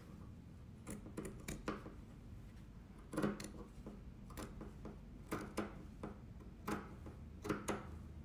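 Scissors snipping through T-shirt fabric: about ten short, crisp cuts at an uneven pace, the loudest about three seconds in.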